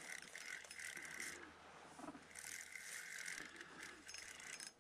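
Fishing reel being cranked to retrieve line, a faint steady whirring in two spells: it stops about a second and a half in and starts again about a second later, running until just before the end.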